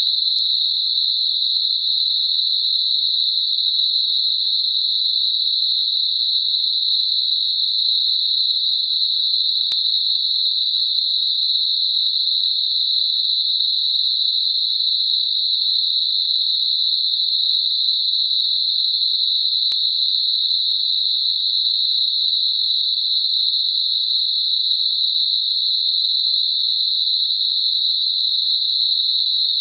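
Synthetic Gaussian narrow-band noise centred on 4 kHz: a steady, even high-pitched hiss held within a narrow band and nothing above or below it, generated as a masker for high-pitched tinnitus.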